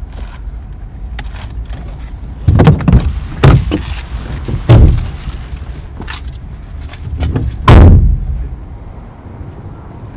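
Car door knocks and bangs, four in all, the loudest about three-quarters of the way through, over a steady low rumble.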